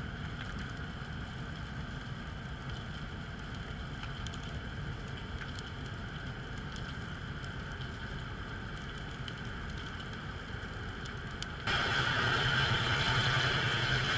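Underwater ambience picked up by a submerged camera: a steady hiss with a low hum and a few faint clicks, which jumps suddenly louder about twelve seconds in.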